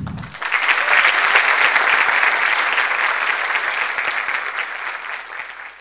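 Theatre audience applauding as the last note of the music dies away. The clapping swells in just after the start and fades out near the end.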